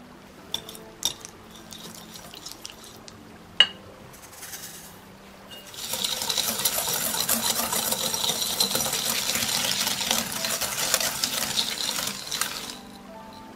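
Wire whisk mixing softened butter and granulated sugar in a glass bowl. A few separate light clicks come first; then, about six seconds in, comes some six seconds of steady, rapid scraping and clinking of the wires against the glass as the sugar is worked in.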